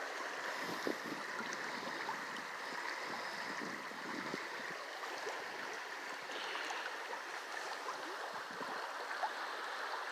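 River water flowing around a kayak: a steady rushing and rippling, with a few small splashes and ticks.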